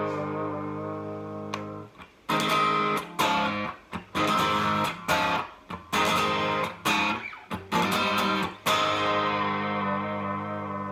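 Partscaster electric guitar played through an amp. One chord rings for about two seconds, then several short strummed chords follow in a choppy rhythm, and a last chord, struck near the end, is left ringing and slowly fading.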